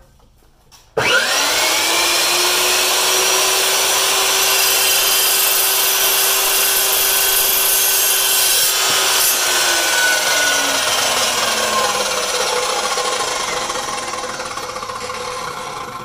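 Evolution EVOSAW380 15-inch cold-cut chop saw: its 1800 W motor starts about a second in with a quick rising whine and runs steadily while the toothed steel-cutting blade goes through thin-wall copper tubing. It is then switched off and winds down with a slowly falling whine over the last several seconds.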